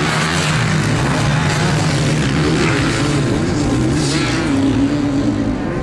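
Several motocross bike engines running hard at high revs as they climb together under load, their pitch wavering slightly.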